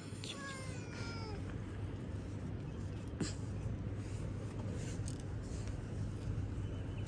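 A hungry kitten meowing: one drawn-out meow that falls in pitch in the first second and a half, over a steady low hum.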